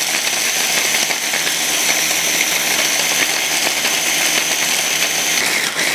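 Small electric food chopper running steadily, grinding dry biscuits into fine crumbs, with a high motor whine over the grinding. It stops near the end.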